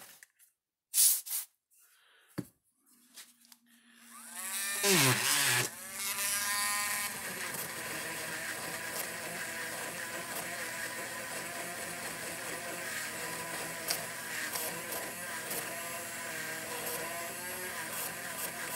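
A few handling knocks, then a cordless Dremel rotary tool with a wire brush spins up about four seconds in and runs steadily, scrubbing a slightly burnt terminal post on an electric fence charger.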